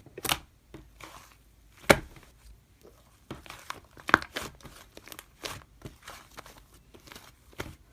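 Slime being squished and worked by hand, giving irregular sticky crackling pops and clicks, the sharpest about two seconds in.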